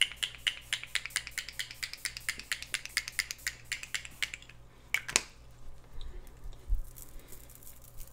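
Gum chewing close to the microphone: quick, regular clicks, about five a second, that stop about four and a half seconds in. A single sharper click follows about a second later.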